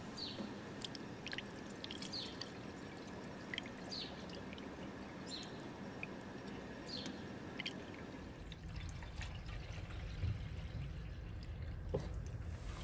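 Coolant being poured from a plastic jug into a Peugeot 206's coolant expansion tank: a steady pour of liquid. About eight and a half seconds in, the pouring stops and a low rumble takes over.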